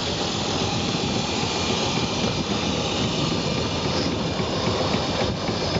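Turbine-engined de Havilland Otter floatplane taxiing on the water close by: a steady, even roar of the engine and propeller.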